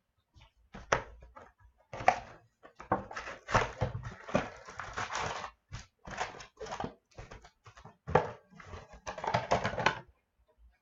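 Hands handling trading-card packaging: irregular clicks, taps and crinkling rustles of cardboard boxes and card-pack wrappers, with short pauses.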